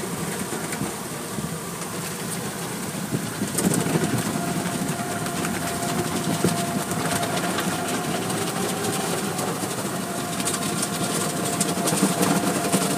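Automatic car wash heard from inside the car: cloth brushes scrubbing over the windshield and body amid water spray, with the wash machinery running steadily. A steady whine joins in about three and a half seconds in.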